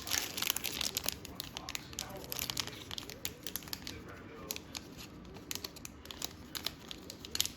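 Clear plastic wrapper of a Topps baseball card pack crinkling and crackling as it is torn open and handled, in quick irregular clicks.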